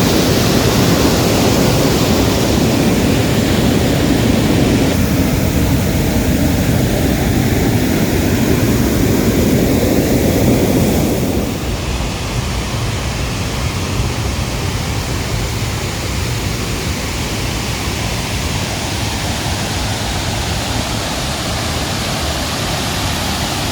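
Dam outflow water rushing and churning into a canal: a steady, loud roar. About halfway through it drops a little quieter and thinner.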